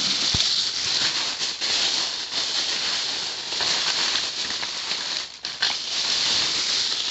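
Someone rummaging to find small toy accessories: a steady rustling and rattling with small clicks, dipping briefly about five seconds in.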